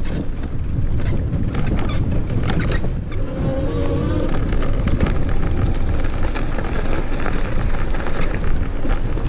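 Electric mountain bike ridden at speed: wind rushing over the microphone and tyre noise on the path and gravel, with many small clicks and rattles. The 48V 1000W rear hub motor's whine comes through about three seconds in.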